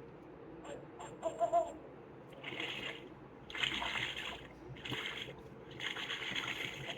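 Water splashing sound effect from a children's sound book's small speaker, coming in four short bursts in the second half.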